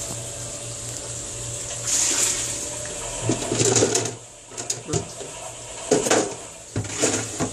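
Small top-loading washing machine filling with water: a hiss of inflowing water over a steady low hum, broken by several short knocks and bumps.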